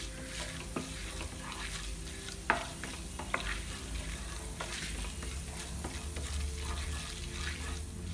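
Urad dal, chana dal and cumin seeds frying in a little oil in a nonstick pan with a soft, steady sizzle while a wooden spatula stirs and scrapes through them, knocking against the pan now and then, most sharply about two and a half seconds in. The lentils are being roasted until reddish.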